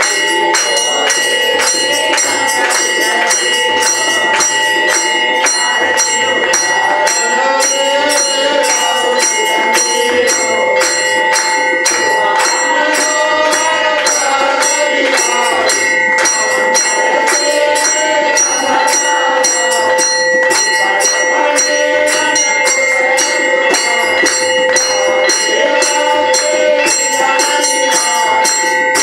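Temple bells and jingling metal ringing rapidly and continuously for the aarti, several ringing tones held throughout, with a low beat repeating about every second and a half.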